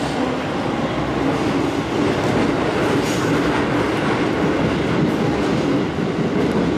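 Train running on its rails: a steady rumble of wheels and carriage noise with a low hum.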